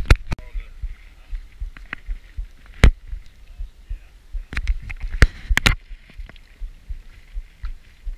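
Irregular sharp knocks and clicks over constant low thumping, typical of small waves slapping against a boat's hull. The loudest knocks come about three seconds in and again between five and six seconds in.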